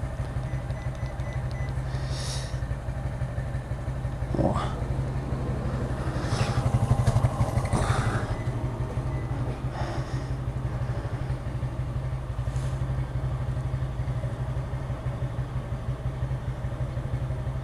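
Yamaha XT 660's single-cylinder engine idling steadily, with brief rustling and clatter about six to eight seconds in.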